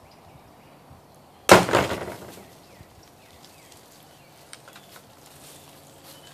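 A big handmade chopper knife chops through a plastic water bottle and strikes the wooden board beneath: one sharp, loud chop about a second and a half in that rattles away over about a second. Faint clicks and plastic crinkles follow as the split bottle is handled.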